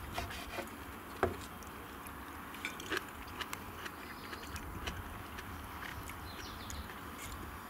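Quiet chewing of a mouthful of asparagus, with a few light clicks and knocks of a knife and fork on a wooden board, the clearest about a second in.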